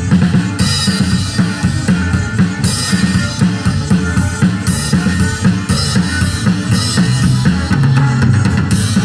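Live rock band playing on electric guitars and a drum kit, with a steady bass drum and snare beat and cymbal crashes coming in about half a second in and recurring.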